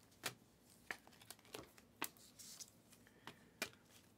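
Glossy Panini Prizm trading cards being flipped through by hand, each card slid off the stack with a faint, sharp click, about seven times at an uneven pace.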